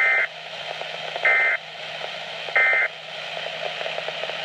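Three identical short bursts of warbling digital data tones from a Weatheradio Canada broadcast, the SAME alert code. Each is about a third of a second long and they come a little over a second apart, over steady radio hiss. Bursts this short fit the end-of-message code rather than a full alert header.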